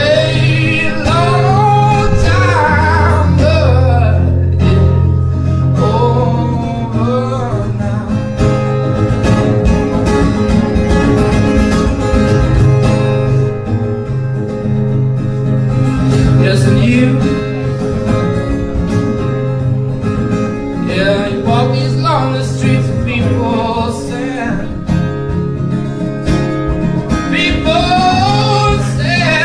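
Background music: a song with guitar and a singing voice, the sung phrases coming and going over sustained low notes.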